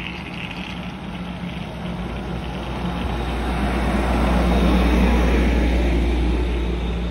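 Amtrak Pacific Surfliner train pulling out of the station, its bi-level passenger cars rolling past close by. The low rumble of the wheels and the steady hum of the train grow louder, peaking about four to five seconds in, then ease slightly.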